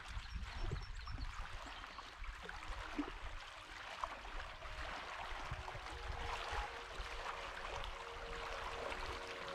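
Gentle lake water trickling and lapping, a continuous soft crackly wash with a low rumble underneath.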